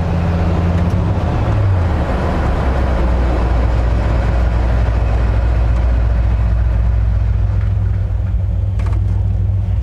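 Engine and road noise inside the cab of a 1967 Ford F-250 truck being driven and braked hard to a stop on new disc brakes. The engine note rises briefly about a second and a half in, then sits low and steady, and the road noise dies down over the last couple of seconds as the truck slows.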